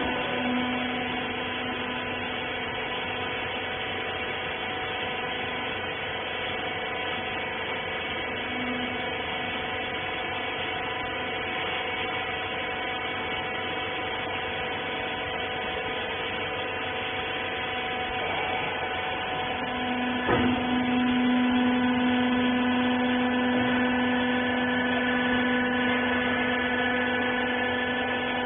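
Rag baler machine's electric hydraulic power unit running with a steady, droning hum. About twenty seconds in there is a click, and the hum grows louder with a stronger low tone, as the machine takes up load.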